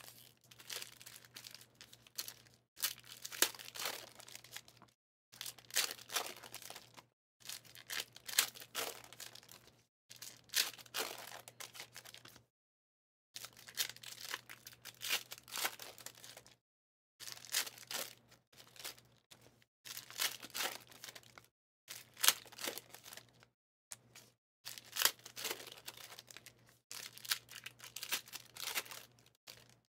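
Foil trading-card pack wrappers being torn open and crinkled, in repeated bursts of a second or two with short silent gaps between, as football card packs are ripped one after another.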